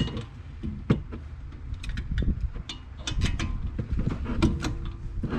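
Tool work on a BMW brake caliper's guide bolts, a ratchet with a 7mm Allen bit breaking them loose: scattered metallic clicks and knocks at uneven intervals.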